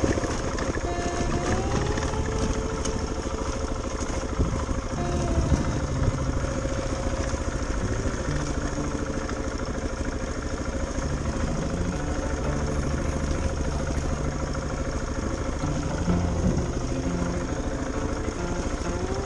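Dual-sport motorcycle engine running at trail speed on a dirt track, its pitch stepping up and down with the throttle.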